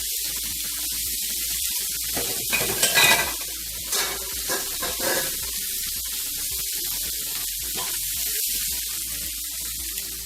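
T-bone steaks sizzling in a hot frying pan, a steady hiss that grows louder for a moment about three seconds in and again around four to five seconds in.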